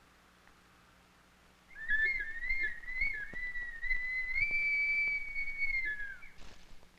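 Double-chambered pre-Columbian clay whistling bottle sounding as water inside forces air through its whistle. One wavering whistle starts about two seconds in, steps up in pitch midway, and dips as it stops near the end.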